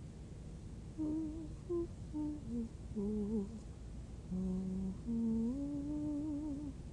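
A woman humming a slow wordless tune. About a second in, short notes step downward to a low held note, then the pitch rises into a long, wavering note near the end.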